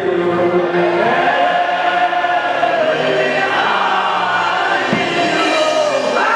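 Choir or congregation singing a gospel worship song, many voices together.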